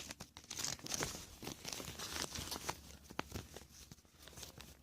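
A blind-bag packet being torn open and crinkled by hand to get at the figure inside: faint, irregular crinkling with a few sharp crackles.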